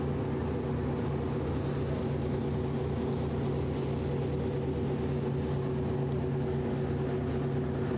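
Fireboat's diesel engines running steadily under way, a constant droning hum, with water rushing along the hull.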